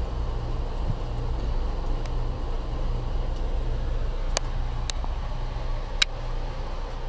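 Amtrak passenger train running, heard from inside the coach as a steady low rumble, with a few sharp clicks about four to six seconds in.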